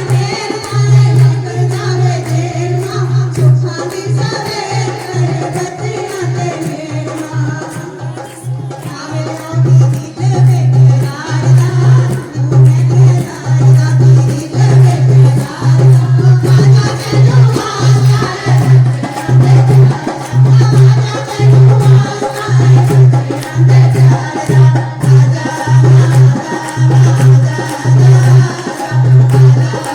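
Music with a strong low drum beat pulsing about once a second under a melody line.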